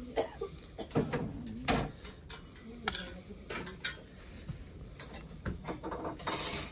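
Dishes and cutlery clinking and knocking in scattered, irregular strikes, as at a meal, with a brief noisy rush near the end.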